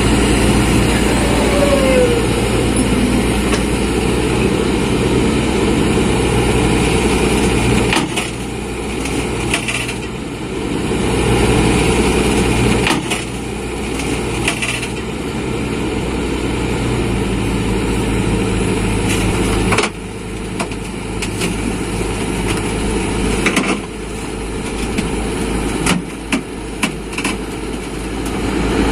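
Hitachi hydraulic excavator's diesel engine running under hydraulic load, its note changing several times, with scattered sharp knocks and clanks from the machine's steel tracks and bucket and a quick cluster of them near the end.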